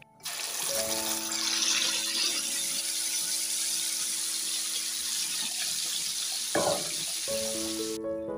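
Blended pepper purée poured into a pot of hot oily stock, hissing and sizzling as it hits and boils up. The sizzle starts abruptly just after the start and cuts off about a second before the end.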